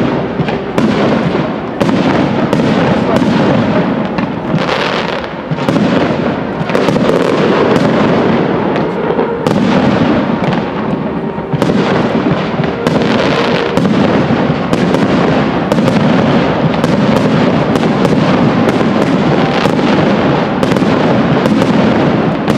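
Aerial firework shells bursting in a rapid, uneven string of loud bangs, one after another with no pause.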